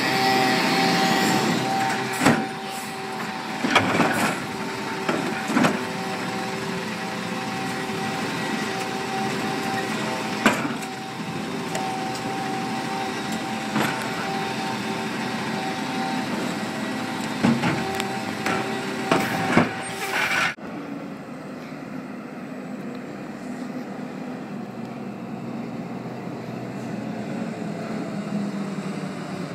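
Natural-gas Freightliner Condor garbage truck with a McNeilus automated side-loader running close by, its engine and hydraulic pump whining steadily while sharp knocks and bangs come every few seconds as the arm handles the carts. About two-thirds through, this cuts off suddenly to the quieter, steady sound of the truck running farther off.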